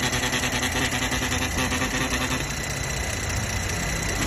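Mercedes-Benz GLE43's M276 twin-turbo V6 running steadily, with a fast, even ticking and a steady high whine over the engine hum: the abnormal engine-bay noise the owner is chasing.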